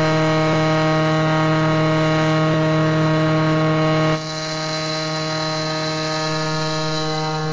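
The CN Transcona railway shops' steam whistle, once the shops' shift signal, blowing one long, steady, low-pitched blast. About four seconds in it drops a little in loudness and carries on.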